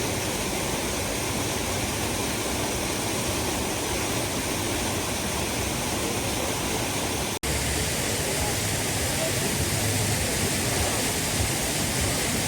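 Steady rush of a waterfall, an even roar of falling water, broken by a split-second drop-out about seven seconds in.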